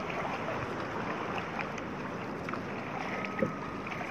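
Water splashing and sloshing around a small outrigger canoe being paddled, with wind on the microphone throughout and a light knock about three and a half seconds in.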